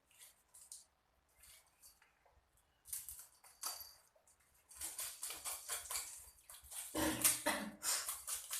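Quick scraping and knocking strokes of a knife working on a fish, as in scaling and cleaning it. The strokes are sparse at first and come thick and fast from about three seconds in, with a brief lower sound near seven seconds.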